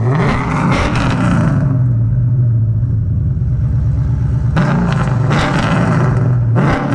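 Car engine running at a deep, steady idle, revved up briefly at the start and again about two-thirds of the way through.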